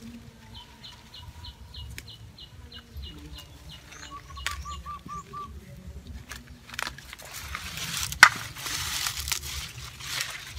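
A knife cutting into the tough root base of a gerbera clump, with leaves rustling, scattered clicks and one sharp snap a little after eight seconds. The roots are hard to cut. Over the first three seconds a small bird gives a rapid run of short falling chirps, then a brief run of repeated notes about four seconds in.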